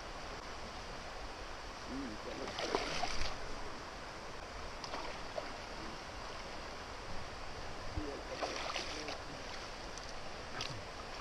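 Steady rushing of river rapids, with two short splashes at the water's edge about two and a half and eight and a half seconds in as a fish is brought to the landing net.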